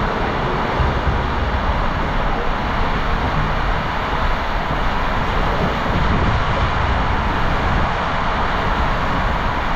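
Steady rushing water and a low rumble as a rider on a tube slides down an enclosed water slide tube.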